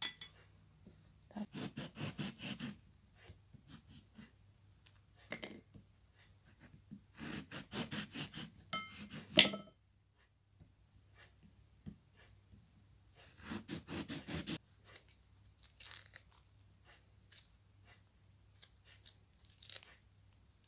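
A kitchen knife cutting through a lemon's thick peel in quick, short sawing strokes, in three bursts of a second or two each. A single sharp knock, the loudest sound, comes about nine seconds in.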